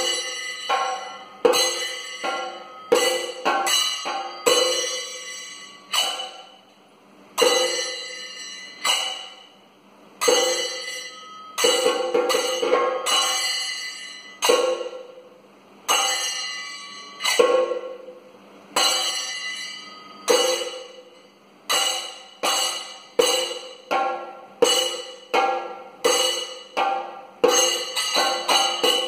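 Kathakali percussion accompaniment: a long run of sharp strikes at an uneven pace, each ringing out and fading, with a couple of brief lulls.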